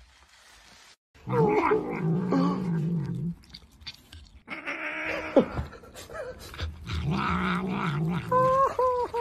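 A cat growling in low, drawn-out grumbles while eating a banana, starting about a second in, with a higher wavering call near the end.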